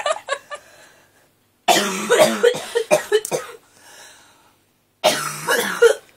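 A person coughing in two bouts: a run of harsh coughs about two seconds in and a shorter one near the end, with quiet between. The coughs are breaking through after being held in.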